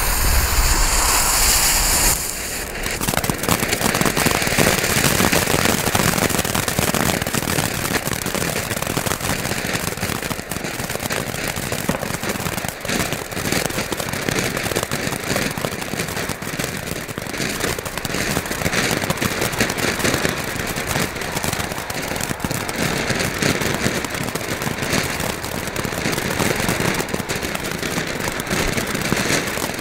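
Chrysanthemum ground fountain: the fuse hisses for about two seconds, then the fountain catches and sprays sparks with a steady, dense crackling hiss.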